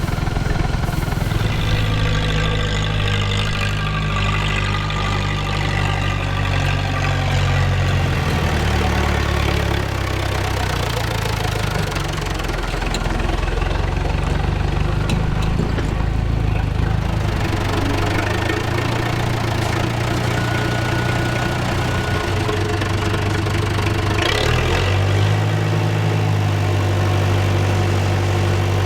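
Farm diesel engine running steadily, its note shifting several times as its speed and load change.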